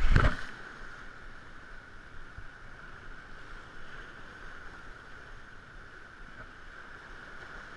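Steady wash of sea and wind along the shore, with a brief loud rush in the first half second.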